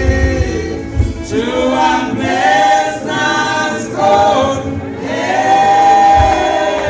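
Gospel choir singing with accompaniment, ending the phrase on a long held note. The low beat of the accompaniment drops out about a second in.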